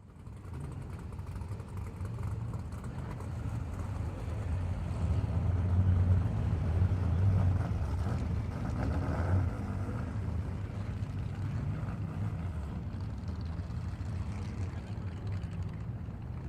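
Car engine running, its low hum swelling louder for a few seconds mid-way, then holding steady.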